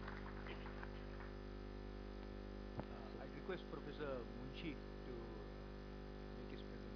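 Steady electrical mains hum with many overtones running under the recording, with faint, indistinct voices in the middle.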